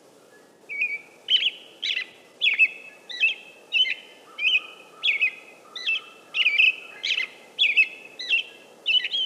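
American robin calling: a rapid series of more than a dozen short, sharp notes, about three every two seconds, starting about a second in, over a faint steady background hiss.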